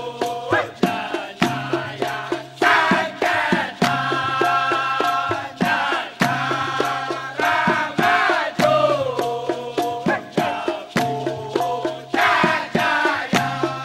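Dikir barat chorus of men singing together in the responsorial chant style, over a steady run of sharp percussive beats.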